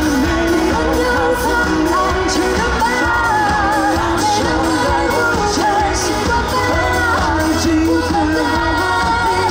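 A live pop band playing with a lead singer, the melody carried by the voice over a steady backing of drums and instruments.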